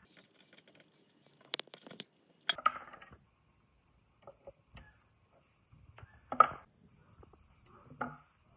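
Hard parts clinking and knocking as they are handled: a quick run of light clicks, then a few separate sharp knocks that ring briefly, the loudest a little past the middle.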